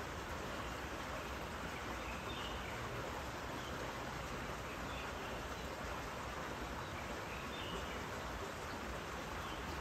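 Steady outdoor background noise, a constant even hiss with a few faint high chirps scattered through it.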